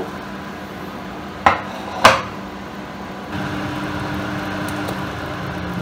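A glass baking dish knocking down onto an electric stovetop: two knocks about half a second apart, the second louder with a short ring. About three seconds in, a steady fan hum starts, the kitchen range hood.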